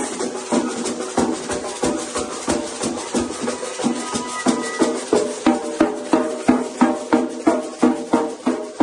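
Bumba-meu-boi music: dense percussion of clacking wooden clappers and drums in a steady rhythm under sustained pitched tones. The beats grow stronger about halfway through.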